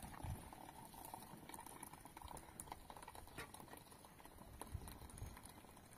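Near silence: faint background noise with a few soft, low knocks and scattered faint clicks.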